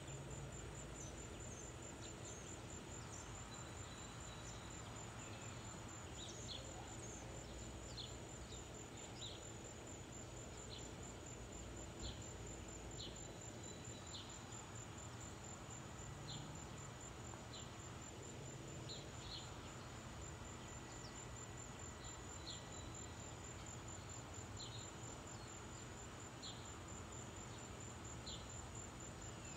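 Outdoor ambience: a continuous high-pitched insect trill, with short chirps about once a second over a steady low rumble.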